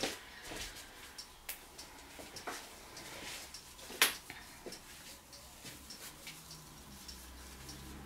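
Faint, scattered clicks and light taps from hands handling small things on a work table; the sharpest click comes about four seconds in. A faint low hum sets in after about six seconds.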